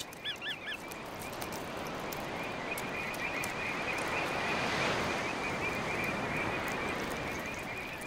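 Tidal mudflat ambience: a bird's short three-note call right at the start, then a soft wash that swells toward the middle and fades again, under a faint, steady high chirring.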